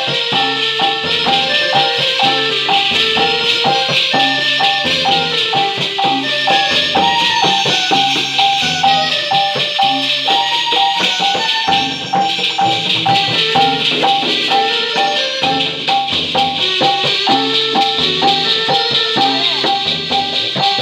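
Keyboard music in joget-dikir barat style: an upbeat Malay dance rhythm with a constant maraca-like shaker, a steady beat and bass line, and a repeating keyboard melody.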